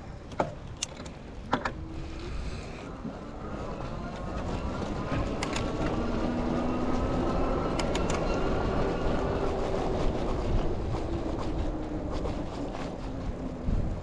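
Aventon Aventure fat-tire e-bike under way on snow: the electric hub motor whines faintly, its pitch rising as the bike speeds up and dropping near the end as it slows, over a steady low rumble of the fat tyres rolling on snow. A few sharp clicks and rattles from the bike come through, mostly in the first two seconds.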